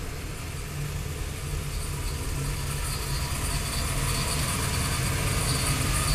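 Vortech-supercharged 427 Windsor V8 of a 1991 Ford Thunderbird Super Coupe running at low speed as the car creeps forward, a steady low rumble that grows gradually louder as it comes closer.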